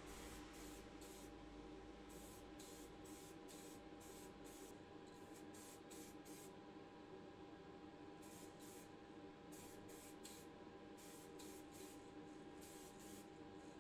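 Aerosol can of white primer spraying faintly in many short bursts, with a steady low hum underneath.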